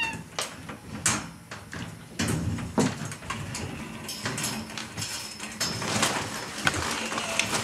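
A door opening and a person coming into the room: scattered knocks and clicks, then steady handling and shuffling noise from about two seconds in.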